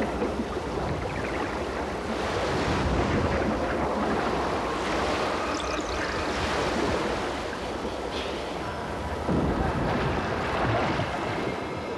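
Sea water splashing and churning with waves as a great white shark thrashes at prey on the surface. The rush swells louder a couple of times.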